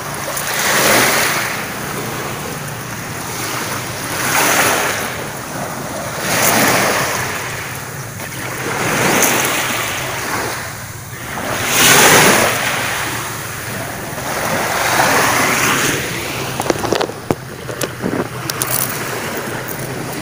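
Small waves breaking and washing up a pebble beach, the wash swelling and falling back about every three seconds. A few light clicks near the end.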